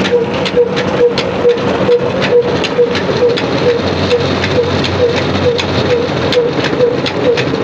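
Belt-driven rice huller running under load: a steady rattle and hiss of grain pouring from its chute, full of fine clicks, over a hum that pulses about twice a second from the machine and its belt drive.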